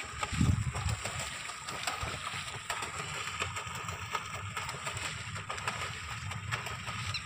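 Pedal-driven bicycle boat's paddle wheel churning and splashing water in a steady hiss with small crackles, over a low rumble of wind on the microphone.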